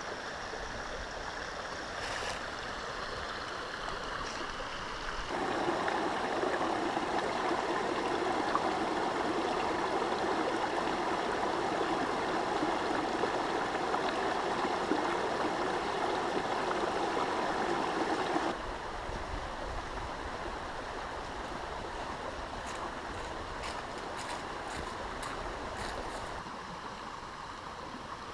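Small stream flowing over rocks, a steady rush of water that grows noticeably louder for about thirteen seconds in the middle, then drops back.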